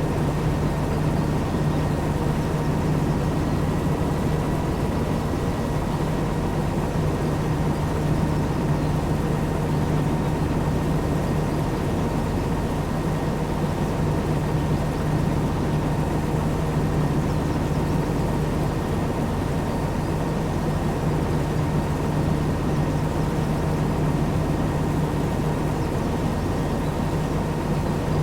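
Heavy farm machine's diesel engine running steadily under load, a constant low drone with a thin steady whine above it.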